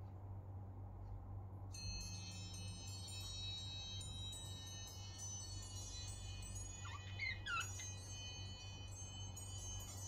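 Budgerigar giving a few short chirps about seven seconds in, over a bed of ringing chime tones that start suddenly about two seconds in.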